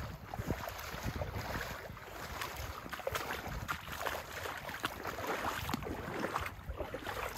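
Wind buffeting the microphone in uneven gusts, with soft, irregular knocks and rustles scattered through it.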